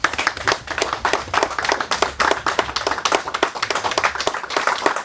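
People applauding: many hands clapping in a dense, steady patter.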